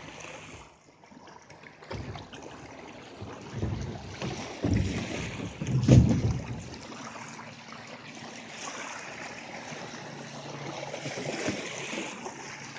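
Small waves lapping and washing on a sandy lakeshore, with gusts of wind buffeting the microphone, strongest in the middle.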